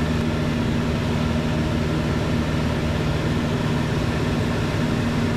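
Van's RV-7 light aircraft's piston engine and propeller droning steadily at an even pitch, heard inside the cockpit.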